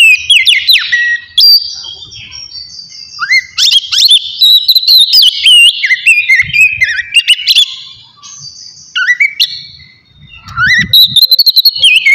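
Oriental magpie-robin (kacer) singing loud, clear whistled phrases of rising and falling notes mixed with sharp, scratchy notes. The song eases off briefly about two-thirds of the way through, then starts again.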